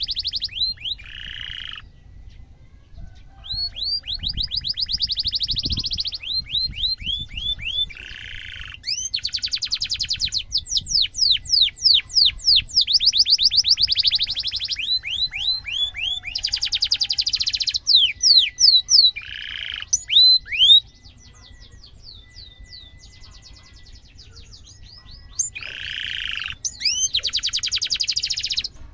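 Domestic canary singing: long runs of rapid trilled notes, each a quick pitch sweep, broken by short harsh buzzy notes, with a pause of a few seconds about two-thirds of the way through.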